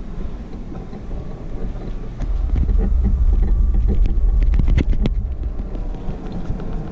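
Low rumble from a camera moving along a path, with scattered clicks and knocks; the rumble gets louder about two seconds in.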